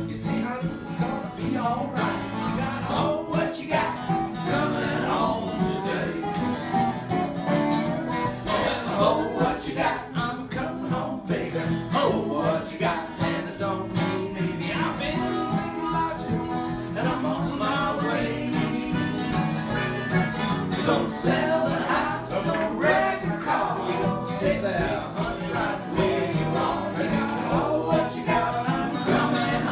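Acoustic guitars strumming and picking a country tune together, with a man singing along.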